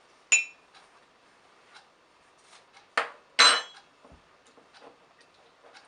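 Kitchenware clinking: a few sharp knocks of hard utensils or crockery with short ringing, two close together about three seconds in being the loudest, and faint small clicks between.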